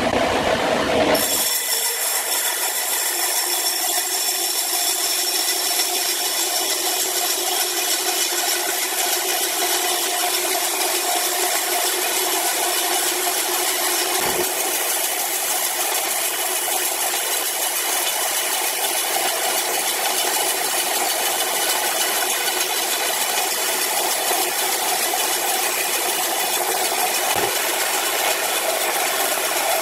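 Horizontal band sawmill blade running through a large log: a steady, unchanging saw noise with a strong hiss and a couple of held tones. A fuller, lower machine sound cuts off about a second in.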